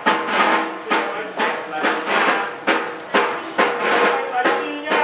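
A drum beaten in a steady rhythm, about two strokes a second, with a held melody sounding over it.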